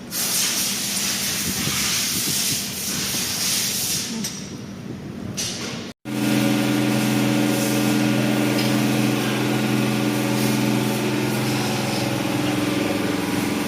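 A loud, steady air hiss for about five seconds. After a sudden cut, a Bajaj Pulsar N150's single-cylinder engine idles steadily with its tappets freshly adjusted.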